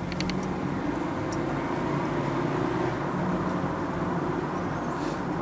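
Steady running drone of a Honda Freed+ Hybrid heard inside its cabin, with a few faint clicks near the start and a brief high chirp near the end.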